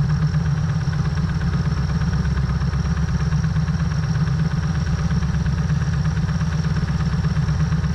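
Supercharged LS V8 in a jet boat running at a steady speed.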